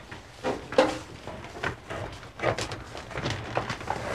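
A schoolgirl's footsteps across a classroom floor, with scattered soft knocks and rustles from children at wooden desks.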